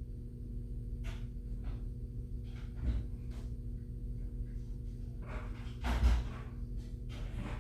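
Steady low electrical hum, with scattered faint rustling and handling noises and a soft thump about three seconds in and a louder one about six seconds in.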